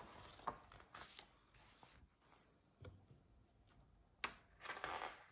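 Book pages being turned by hand: faint paper rustles and soft taps, with a louder rustle of a page flipping near the end.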